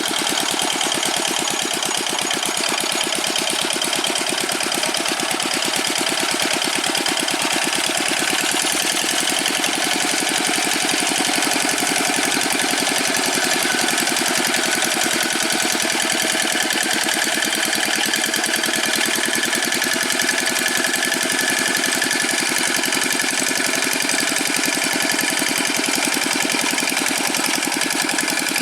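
The old Dongfeng single-cylinder diesel engine of a Quick G600 hand tractor running steadily, with a rapid, even beat.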